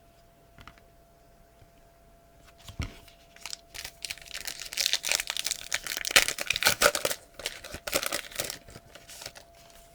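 A trading card pack wrapper being torn open and crinkled. A single light knock comes about three seconds in, then about six seconds of dense crackling and tearing.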